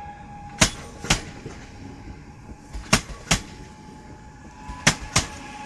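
PESA Elf 2 electric multiple unit departing: its wheels knock in pairs over a rail joint, three times, the pairs coming a little quicker as the train gathers speed, over a steady electric whine from the drive.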